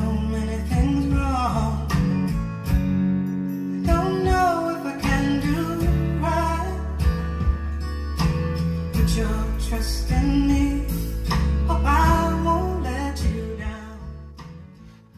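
Song with guitar, singing and heavy bass played through a pair of vintage Jensen CC315 floor-standing speakers and heard in the room. Near the end the volume is turned down and the music fades away.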